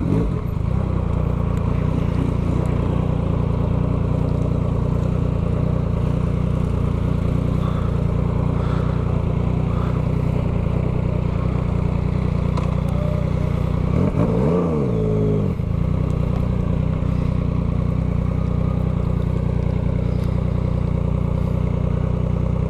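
Yamaha MT-09's 890 cc crossplane inline-three engine, running through a full 3-into-1 Atalla straight-pipe exhaust, running steadily, with one quick rev that rises and falls about fourteen seconds in.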